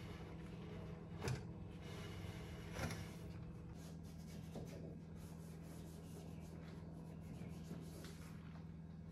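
A cloth rubbing along a metal telescopic slide rail as it is wiped clean, with two louder knocks about a second and three seconds in. A steady low hum runs underneath.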